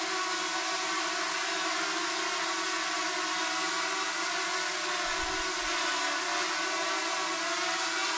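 Two sub-250 g quadcopters, a Hubsan Zino Mini Pro and a DJI Mini 2, hovering indoors: a steady, high propeller whine made of several tones held at an even pitch. There is a brief low thud about five seconds in.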